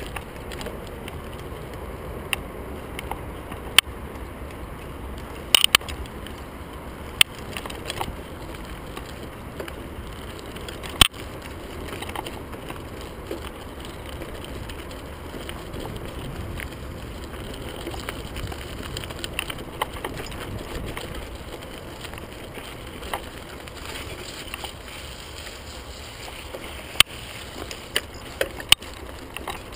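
Merida TFS 800D mountain bike ridden over a rough gravel and dirt trail: a steady rumble of tyres on the ground, with sharp clacks and rattles scattered through as the bike jolts over stones.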